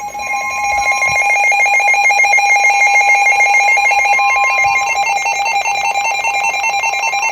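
Weather radio alarm: the steady NOAA Weather Radio warning alarm tone, with a weather alert radio's loud, rapidly pulsing alarm beeping over it, signalling that a warning is being issued.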